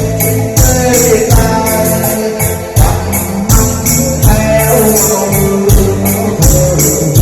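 Music with a steady drum beat about every three-quarters of a second, jingling high percussion, and a melody line that bends in pitch over it.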